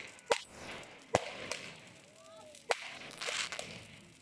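Fireworks going off overhead: three sharp cracks, about a third of a second in, just past one second and near three seconds, with hissing and crackling between them.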